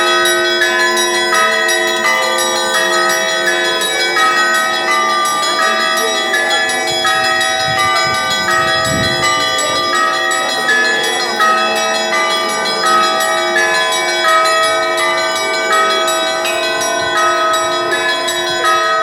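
Russian Orthodox church bells ringing. Many bells of different pitches are struck in a quick, continuous overlapping pattern, with the deeper bells' tones ringing on under the faster small bells.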